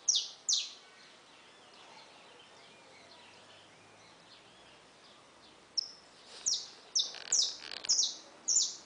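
Small songbirds chirping: sharp, high calls that each sweep quickly downward. Two come near the start, then after a quiet stretch a quick run of about six comes near the end.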